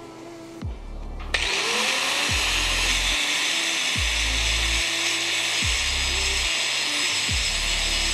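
An angle grinder starts about a second and a half in and runs steadily, grinding on a motorcycle drive chain, over background music with a deep, repeating bass.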